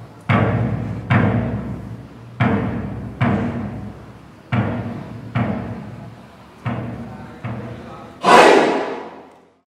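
Music of slow, deep drum beats, struck in pairs and each ringing out, ending on a louder crash that fades away.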